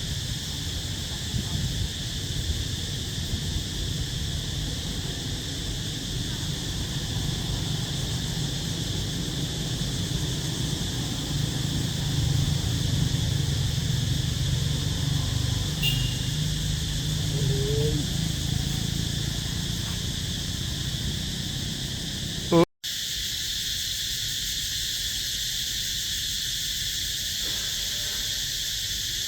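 Steady chorus of insects chirring, a continuous high-pitched buzz, over a low rumble that drops away after a brief dropout about 23 seconds in.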